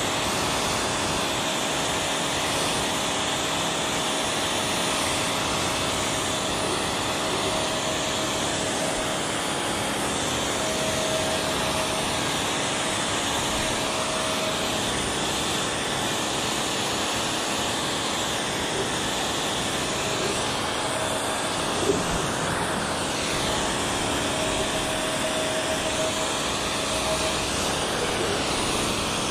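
Bosch Aquatak 125 electric pressure washer running steadily, its pump humming under the hiss of the water jet spraying onto a motorcycle. A short click about two-thirds of the way through.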